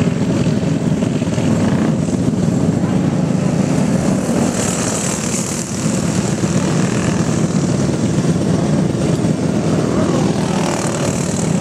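Several racing go-kart engines buzzing steadily at speed.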